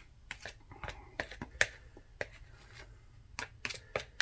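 Spoon tapping and scraping against a plastic bowl while eating: a run of sharp, irregular clicks.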